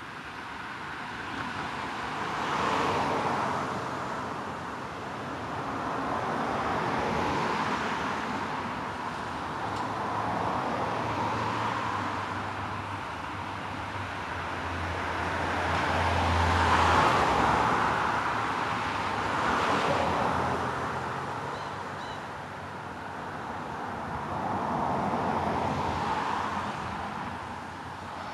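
Traffic on a street: cars passing one after another, each swelling and fading over a few seconds, with a deeper engine hum in the middle.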